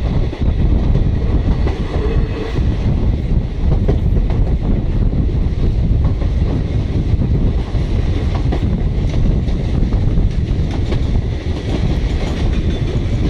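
Passenger coach running at speed, heard from its open doorway: a steady loud rumble with the wheels clicking over rail joints.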